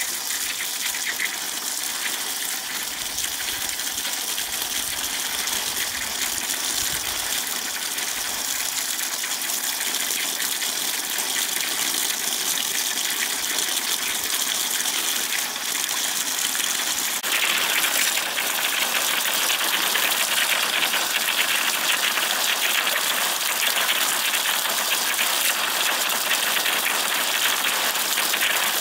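Tap water gushing from an outdoor standpipe and splashing onto leafy greens in a woven basket as they are rinsed by hand. The steady rush gets suddenly louder a little past halfway.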